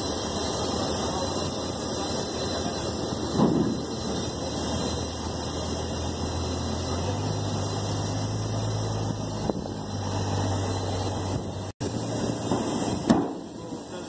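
Steady machine noise with a high whine from the Antonov An-225 standing with its nose cargo door open. A deeper hum comes in about halfway through and stops shortly before the end, while the nose loading ramp's extension is lowered. There are two short knocks.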